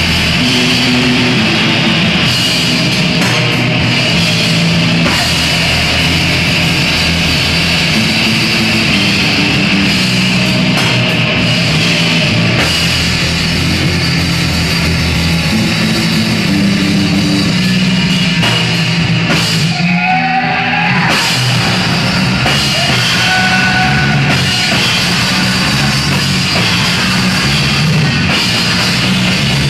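Live black metal band playing loud, with distorted guitars and a drum kit. The sound briefly thins out about two-thirds of the way through, where a wavering guitar tone comes through.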